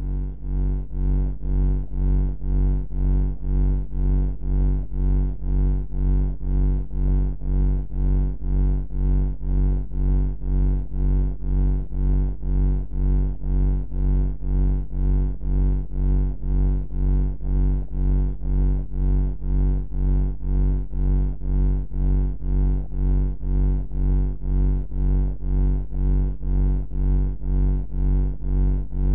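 Low droning bunker-ambience hum, deep and rich in overtones, pulsing evenly about twice a second.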